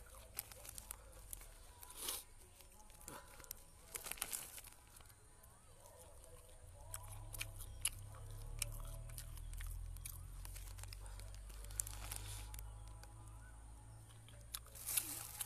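Close-up chewing and biting of crunchy food, with sharp crunches and clicks scattered throughout and light crinkling of plastic bags. A low rumble runs through the second half.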